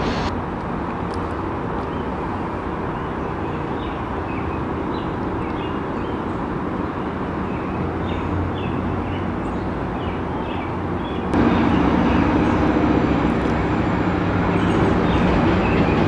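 Outdoor city ambience: a steady low rumble with faint, short high chirps over it. It steps up suddenly about eleven seconds in to a louder, denser rumble.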